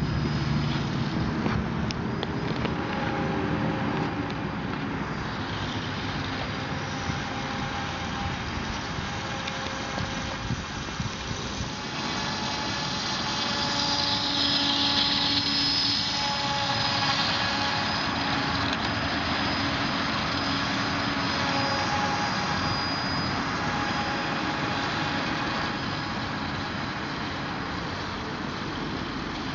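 Propeller of a homemade RC snowmobile, driven by a small Rimfire 2400 kV brushless electric motor, running steadily with a whine over a rushing hiss. The high whine is loudest about halfway through.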